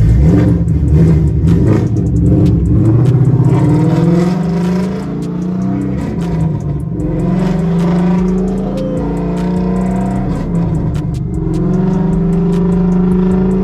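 2014 Ford Mustang GT's 5.0 V8, breathing through catless long-tube headers and an off-road X-pipe, heard loud from inside the cabin. It pulls away with its exhaust note climbing over the first few seconds, then settles into a steady note as the car cruises.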